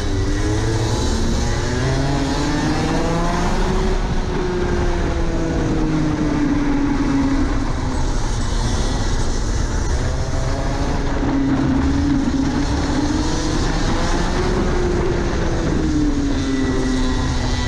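Rotax Max 125 cc single-cylinder two-stroke kart engine running hard, its pitch rising as the kart accelerates and falling as it slows for the corners. This happens twice, and it climbs again near the end.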